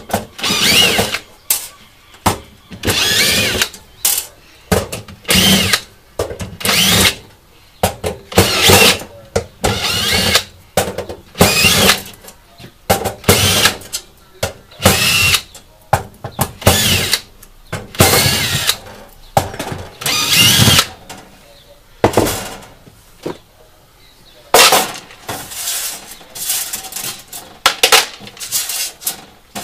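Cordless drill-driver backing screws out of a UPS's sheet-metal lid, in many short whirring bursts of a second or less, one after another with brief pauses between.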